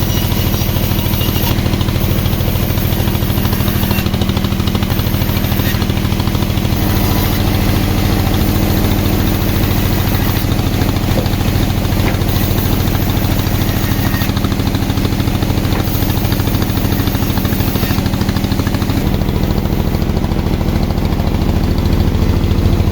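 Sawmill engine running steadily with a low, even hum; its pitch shifts slightly about nineteen seconds in.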